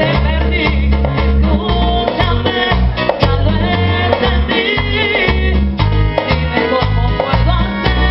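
Tropical Latin dance band playing, with a pulsing bass line under bright melodic instrument lines.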